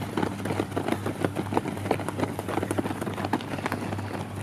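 Quick, overlapping footfalls of a pack of distance runners striding on a dirt track, over a low steady hum.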